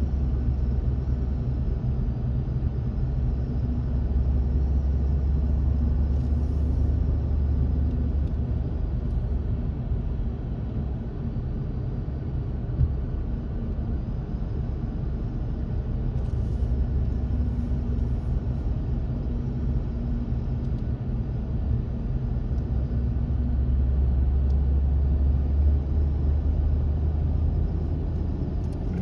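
A car driving along the road, heard from inside the cabin: a steady low rumble of engine and road noise that swells and eases slightly as the car goes.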